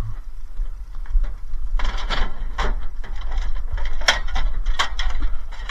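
Sack truck wheeling a washing machine onto a truck's metal tail-lift platform: rattling and clanking, with several sharp knocks from about two seconds in, over a steady low rumble.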